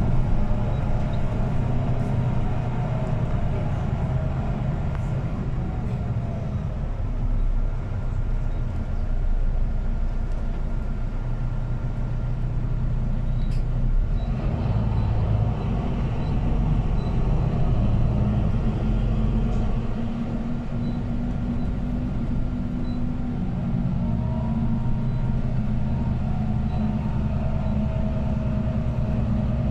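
Inside a city bus under way: steady engine and drivetrain rumble with road noise, and a whine from the drivetrain that rises and falls in pitch as the bus speeds up and slows down.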